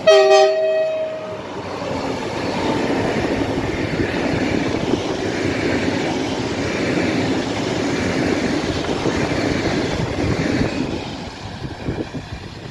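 PKP Intercity Pendolino (ED250) high-speed electric train sounding a two-tone horn blast of about a second, then passing at speed with a steady loud rush of wheels and air that drops away near the end.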